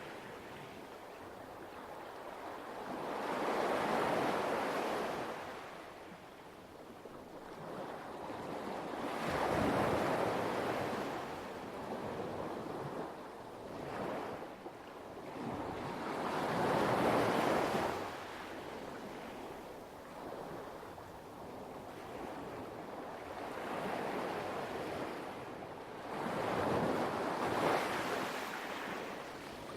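Light waves washing onto a pebble beach, the wash swelling and falling away in slow surges about every six or seven seconds, five times over.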